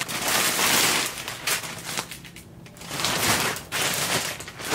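Plastic poly mailer bag crinkling and rustling as it is handled, in uneven bursts with a brief quieter pause midway.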